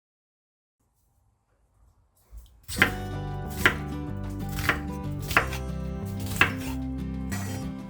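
Silence for about two and a half seconds, then a knife chopping on a cutting board, single chops about once a second, over background music.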